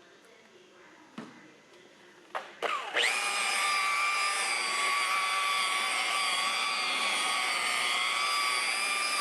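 A few clicks of handling, then about three seconds in a power tool's motor starts with a quick rising whine and runs on steadily at high speed, while overspray is worked off a vehicle door.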